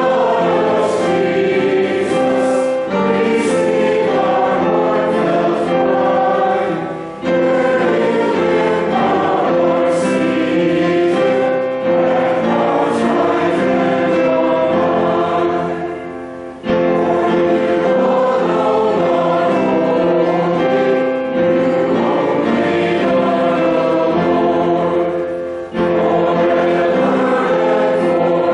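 Church congregation singing together, a sustained sung melody in long phrases with three brief breaks between lines.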